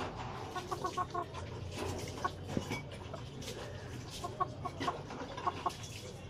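A rooster clucking: short notes in quick runs of three or four, coming in several bunches.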